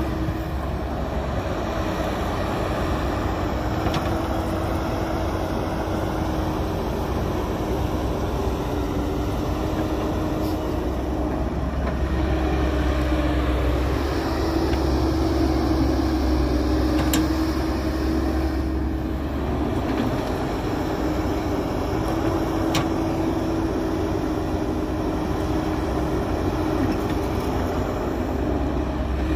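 Heavy diesel engine of earthmoving machinery running steadily under work, its hum swelling and easing slightly now and then, with a few faint clicks.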